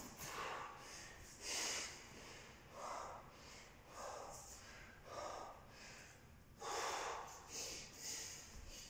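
A man breathing hard from exertion late in a workout, a string of heavy, gasping breaths at roughly one a second.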